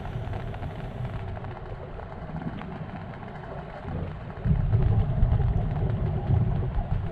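Scuba regulator exhalation bubbles rumbling, heard underwater. A louder, uneven stretch of bubbling starts about four and a half seconds in.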